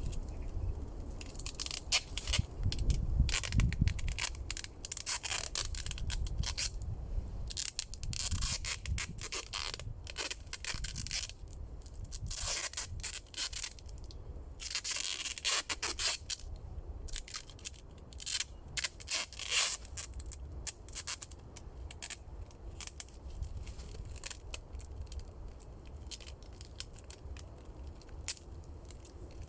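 Dry crackling, scraping and rustling from hands working dry reed stalks and the hut's frame, in uneven bursts with short pauses, with a few longer scrapes or rips in the middle.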